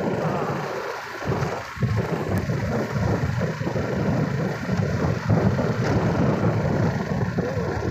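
Wind buffeting the microphone while riding a scooter: a loud, gusty rumble with the scooter's engine running underneath.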